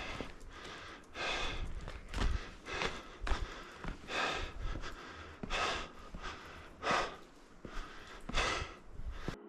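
A person breathing hard and loud close to the microphone, a heavy breath about every second and a half, out of breath from the exertion of climbing.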